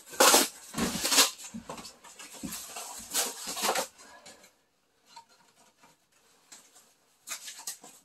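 Cardboard being handled and pushed into a wood stove's firebox as kindling, in several loud rustling, scraping bursts over the first few seconds. Then much quieter, with one more brief rustle near the end.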